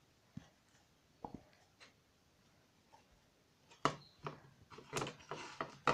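Hands squeezing and kneading a soft glue slime mixed with artificial snow, giving small sticky clicks and squishes. A few scattered ones at first, then many in quick succession near the end.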